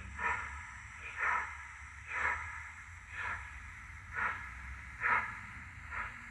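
Model Black Five steam locomotive running slowly with sound, its exhaust chuffs coming about once a second as short hissing puffs over the low rumble of the train on the track.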